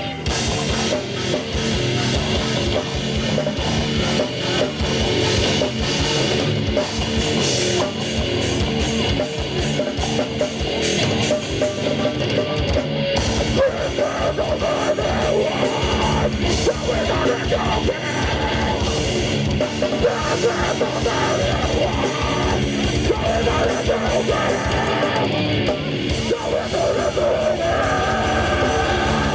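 Heavy metal band playing at full volume: distorted electric guitars and fast, dense drumming.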